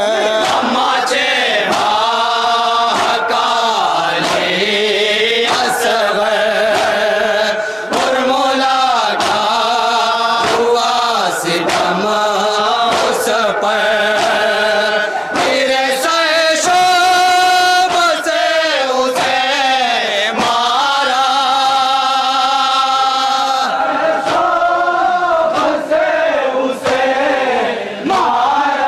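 Men's voices chanting a nauha, a Shia mourning lament, in long held, wavering notes.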